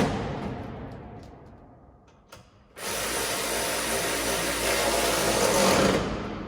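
A power tool run in two bursts while tightening suspension bolts: it dies away over a couple of seconds at the start, there is a small click, then it runs again for about three seconds near the middle and dies away gradually near the end.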